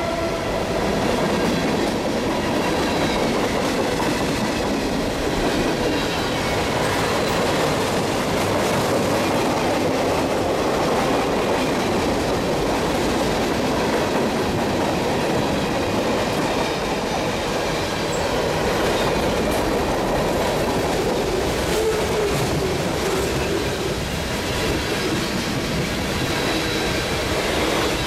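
Freight cars of a mixed freight train rolling past close by: the steady noise of steel wheels running on the rails as hoppers, flatcars and tank cars go by.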